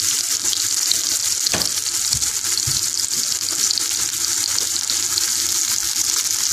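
Sliced raw onions sizzling steadily in hot vegetable oil in a metal pan as a wooden spoon stirs them, with a few soft knocks about two seconds in.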